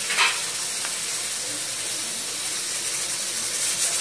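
Pressure cooker on a gas stove hissing steadily as steam escapes past its weight under pressure, with a brief louder spurt about a quarter second in.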